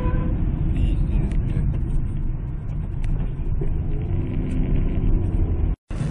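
Steady road and engine rumble of a car driving at highway speed, heard from inside the cabin through a dashcam microphone. It drops out suddenly near the end, then a different car's road noise starts.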